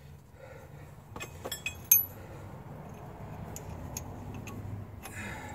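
Steel press fixture cup being fitted by hand into a bottle-jack ball joint press frame: a scatter of light metallic clinks, the sharpest about two seconds in, over a low steady hum.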